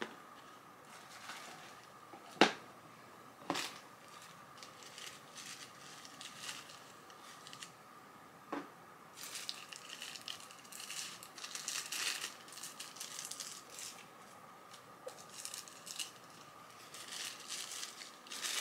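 Paper wrapping crinkling and rustling as a pair of sunglasses is unwrapped from its small cardboard box, the crinkling thickest in the second half. A few sharp taps from handling the box come in the first few seconds, the first of them the loudest sound.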